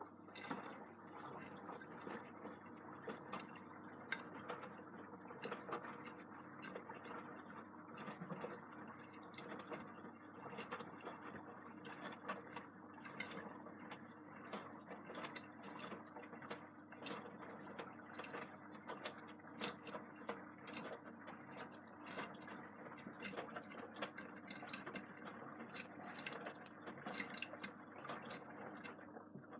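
Beko WM74165W washing machine tumbling its drum during a 90°C quick wash: a steady motor hum with a dense patter of small clicks and knocks from the turning drum and its load. It starts suddenly and stops near the end, one tumble of about half a minute.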